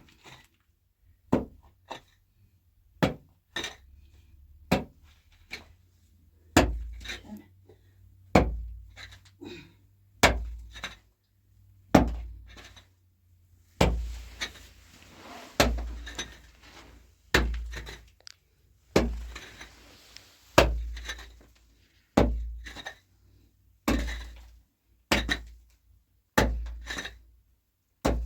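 Repeated heavy blows of a hand tool, roughly one a second, each a sharp crack with a low thud beneath it.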